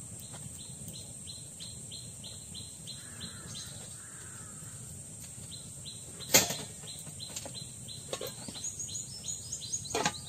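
Birds chirping over and over, about four short high calls a second, with a single sharp knock about six seconds in. Near the end an aluminium lid clatters down onto an aluminium kadai of potatoes in water.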